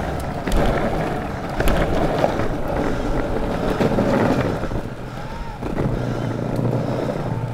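Longboard wheels rolling on pavement: a continuous rumble with short clicks as the wheels cross joints and cracks. A low steady hum joins in about six seconds in.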